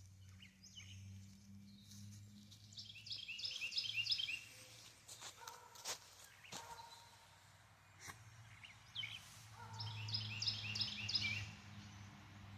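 A songbird singing two runs of rapid, repeated high notes, one a few seconds in and another near the end, over a steady low hum. A few faint clicks fall between the runs.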